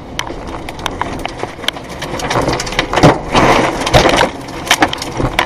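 Storm: rushing wind and rain with many sharp knocks and cracks, like debris and wood being battered, growing louder from about two seconds in and loudest around three to four seconds in.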